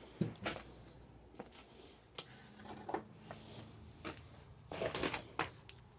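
Irregular clicks and knocks of metal handling as a wrench works the fasteners on tree climbing spikes, about a dozen, a quick cluster just before the five-second mark.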